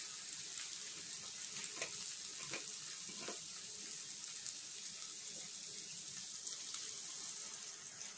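Water being poured into a hot kadai of bean, chana dal and tomato curry, the pan sizzling with a steady hiss and a few light clinks.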